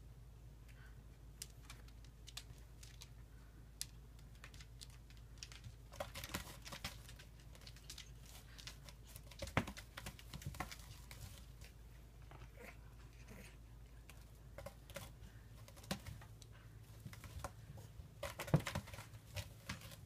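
Kitten's claws scratching and snagging on a rope-wrapped scratching post, in scattered clicks and rasping bursts, the busiest about six, ten and nineteen seconds in.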